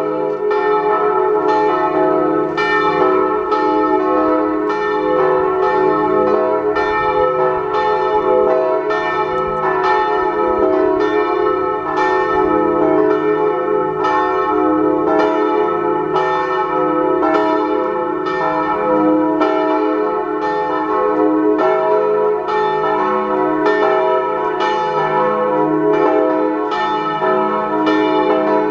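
Church bells swung a slancio (Italian style, mouths swinging up high) in the tower, several ringing together. The strokes follow one another in a steady, overlapping run over a lasting hum. The bells are cast by G. Pruneri of Grosio.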